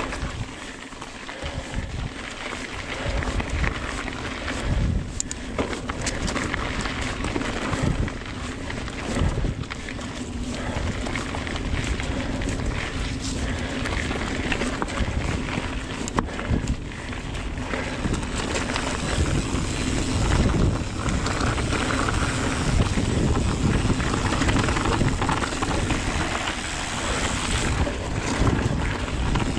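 Giant Trance X mountain bike riding fast down a dirt trail: wind rushing over the action camera's microphone, tyres rolling over the ground, and frequent short knocks and rattles as the bike hits bumps.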